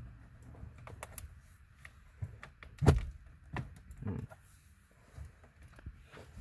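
Plastic clicks and knocks as an aftermarket double-DIN radio in its dash kit is pushed and shifted into the dashboard opening, with one loud thunk about three seconds in.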